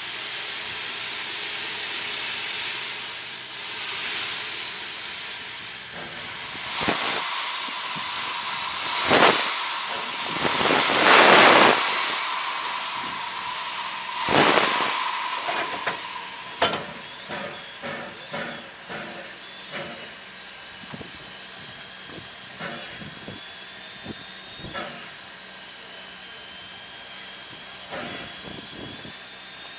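Steam hissing out low down around the cylinders of NZR WW class 4-6-4 tank locomotive WW 644 while she stands still. A steady hiss turns into several loud gushes, the loudest near the middle, with a thin whistling tone under them, then shorter spurts that taper off.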